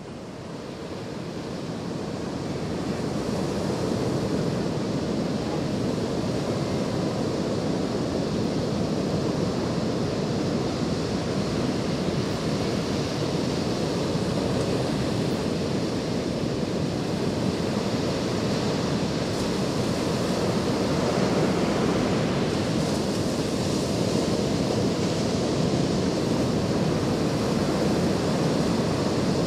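Ocean surf: a steady wash of waves that fades in over the first few seconds and then holds even.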